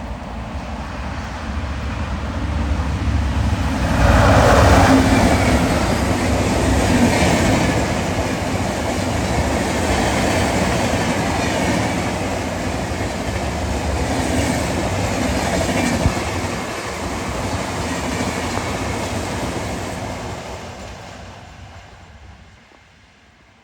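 Humsafar Express passenger train passing at speed, its wheels running over the rails. It builds to its loudest about four seconds in, stays loud while the coaches go by, and fades away over the last few seconds.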